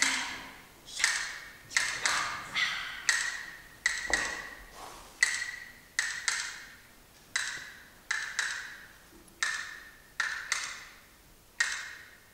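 A series of sharp, short-ringing wooden taps like a wood block, irregular at about one or two a second and spacing out a little before stopping near the end.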